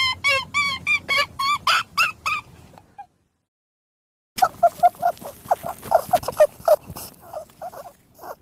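Rabbit calls: a fast series of short pitched calls, about four a second, some sliding downward in pitch. They break off for about a second and a half, then come back as a quicker run of lower, rougher calls.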